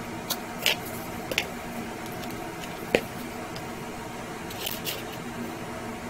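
A few light crinkles and clicks as an epoxy putty stick is pulled from its tube and handled in its plastic wrapper, with one sharper tap about three seconds in. A steady low hum runs underneath.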